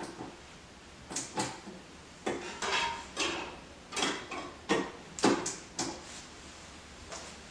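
Objects being handled and set down on a cloth-covered table, with a portable CD player's lid opened and a disc handled: a series of irregular knocks, clicks and short scrapes, the loudest about five seconds in.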